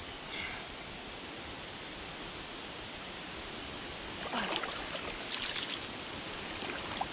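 Water sloshing and splashing as mud is scooped from a shallow creek bed by hand and with a shovel, in two short bouts about four and five and a half seconds in. Under it a steady rush of water.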